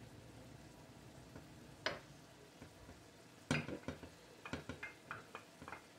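Light clicks and taps of a wooden spoon against a small glass dish and a frying pan: a single tap about two seconds in, then a quick run of them from about three and a half seconds. Underneath, a faint sizzle of ground beef frying in the pan.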